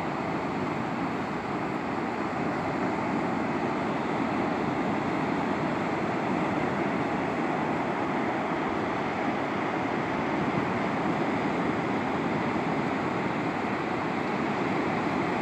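Ocean surf breaking and washing onto a sandy beach, a steady, unbroken wash of noise.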